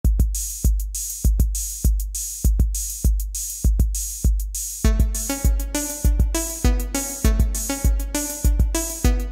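Song intro on an electronic beat: a deep booming kick with sharp hi-hat-like clicks, about one beat every 0.6 seconds. About five seconds in, pitched melody notes join the beat.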